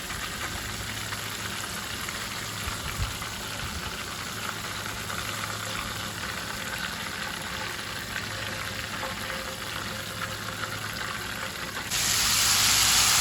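Battered bass fillets frying in hot oil: a steady crackling sizzle. About twelve seconds in it jumps to a louder hissing sizzle as the next batch of fillets goes into the oil.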